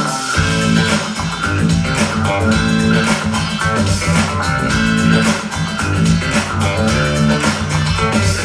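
Guitar-led music with a heavy bass line and a steady beat, played back through a Bose speaker.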